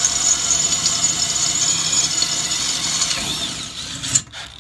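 DeWalt brushless cordless drill boring a hole through 1/8-inch stainless steel plate at part speed, running steadily with a high whine. It winds down near the end, with a sharp click about four seconds in.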